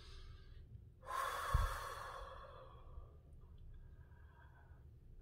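A man breathing slowly and deeply: a faint breath in, then about a second in a long, audible breath out that starts loud and fades over a couple of seconds, with a brief low thump early in it.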